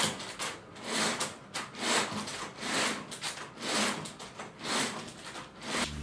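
Soft rubbing and rustling: a run of short, noisy swells about one a second.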